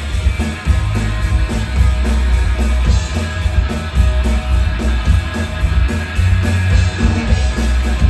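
Rock band playing an instrumental passage between sung lines: guitar over a steady driving beat with heavy bass notes, no singing.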